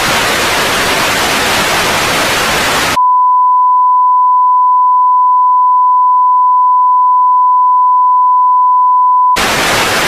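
Television static hiss for about three seconds, cutting straight to a steady single-pitched test-tone beep of the kind played with colour bars, held for about six seconds, then static hiss again near the end.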